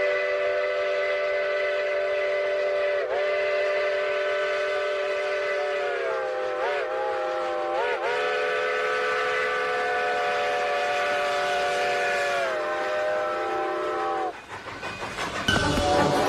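Multi-note chime train whistle blown in one long blast, its chord bending in pitch a few times as it is worked, then cutting off about fourteen seconds in. A different, louder, noisier sound starts just before the end.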